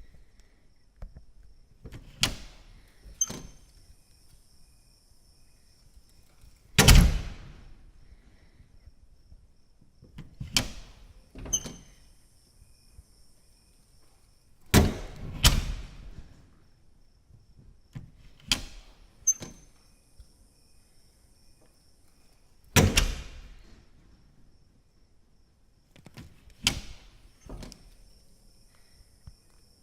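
A door being opened and shut over and over: about a dozen sharp knocks, several in close pairs, two of them much louder than the rest.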